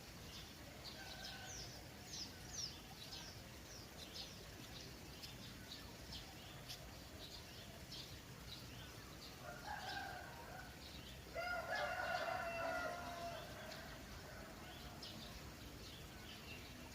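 Small birds chirping in quick, short notes throughout, over a steady low hiss of trickling water. About ten seconds in a rooster crows once, the loudest sound, its call lasting a few seconds.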